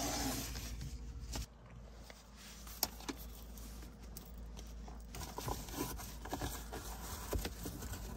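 Scattered light clicks, taps and scrapes of small objects being handled and moved about inside a car, over a low steady hum that cuts off about a second and a half in.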